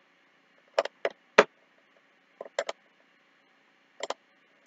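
About six separate, sharp clicks of a computer mouse and keyboard, irregularly spaced, with faint room hiss between them.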